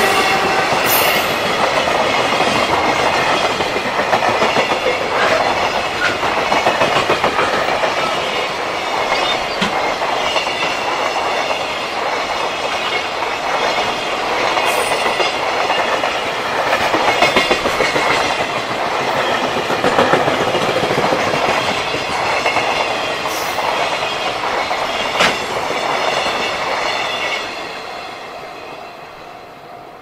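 Freight train of container wagons hauled by a JR Freight EF210 electric locomotive passing at close range: steel wheels rolling and clacking over rail joints in a steady run of clatter. The noise fades away near the end as the last wagon goes by.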